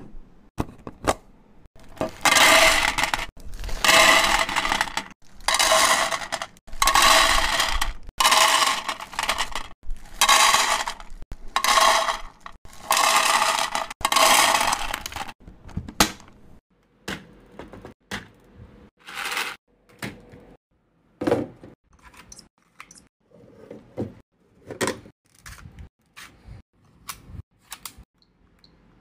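Unboxing handling noise: packaging handled in a dozen rough bursts of rustling and tearing, each under a second long. About halfway through it gives way to scattered short clicks and taps of small hard objects.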